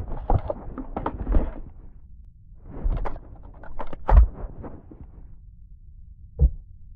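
Mechanical clicks and clacks from the GSW-AMR .50 calibre sniper rifle's action being worked, in two quick clusters of several sharp strokes each, then a single thud near the end. A low steady hum runs underneath.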